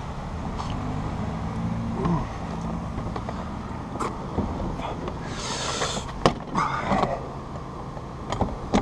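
Steel bolt cutters being worked onto a padlock and its metal hasp, giving a few sharp metal clicks and clanks over a steady low rumble.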